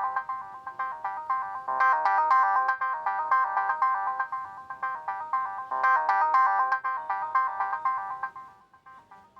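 A Reeder P13 Blue smartphone playing one of its built-in ringtones: a tune of short, quick notes whose phrase repeats about every four seconds, fading out near the end.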